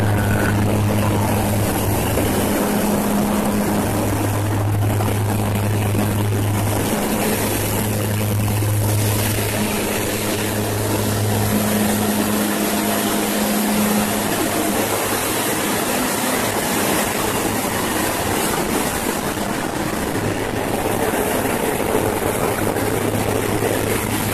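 Propeller airplane in flight, heard inside the cabin: a steady loud drone of engines and rushing air. Its deep propeller hum fades and returns several times.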